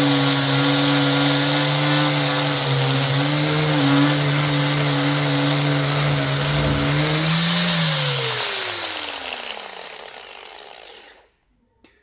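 A woodworking power tool running steadily, then switched off about seven seconds in, its motor winding down with a falling whine until it cuts off about eleven seconds in.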